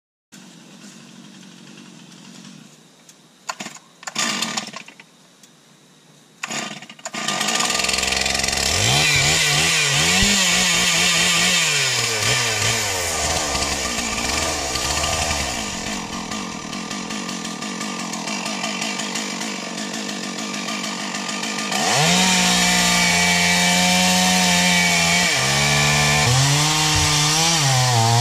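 A Stihl chainsaw starts about a quarter of the way in and is revved up and down. It then runs lower for a while. About three-quarters of the way in it goes to full throttle and cuts into the base of a big white pine trunk, its pitch dipping and rising under the load.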